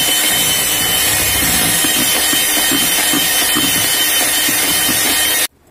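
Electric hand mixer running at speed, its beaters whipping a whipped-cream and powdered-sugar coffee frosting in a plastic bowl, with a steady high whine. It cuts off suddenly near the end.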